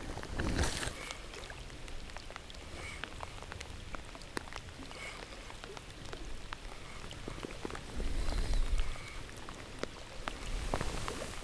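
Rain falling on the river, heard as a steady patter of many small, sharp drop ticks. A low rumble rises briefly about eight seconds in.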